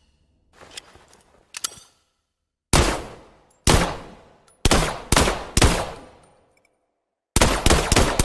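Gunshots from a KE 41 mini pistol. A few faint clicks come first, then five loud single shots, the last ones closer together, each ringing out for about a second. After a pause, a rapid burst of shots starts near the end.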